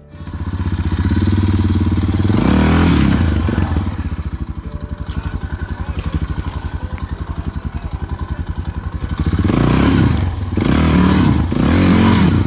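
Suzuki dual-sport motorcycle's single-cylinder engine running at a pulsing idle, revved up once about two seconds in and blipped three times in quick succession near the end, as the rider tries for traction on slippery clay.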